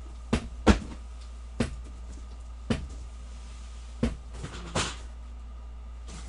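About six sharp knocks and clicks at irregular spacing, the second one the loudest, over a steady low hum.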